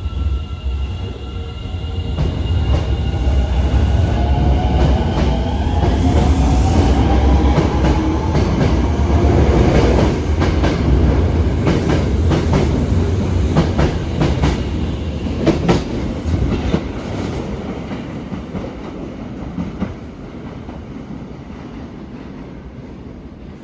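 Osaka Metro 22 series subway train pulling out, its motors whining and rising in pitch as it speeds up, with wheels clacking over rail joints. It is loudest about a third of the way in, then fades as the train moves away.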